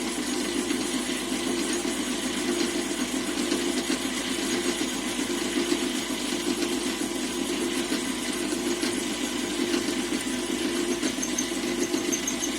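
Lathe running steadily under power: a continuous machine hum with no pauses.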